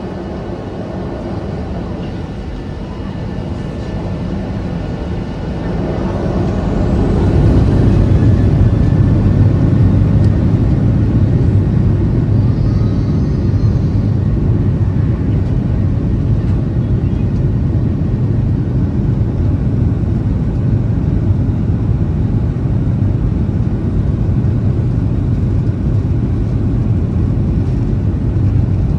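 Inside the cabin of a Boeing 737-800, its CFM56-7B turbofan engines spool up to takeoff thrust: a rising whine and climbing level about five seconds in, then steady loud engine noise with a deep rumble as the takeoff roll begins.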